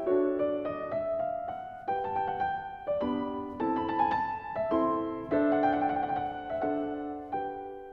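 Background piano music: chords and melody notes struck about once a second and left to ring out.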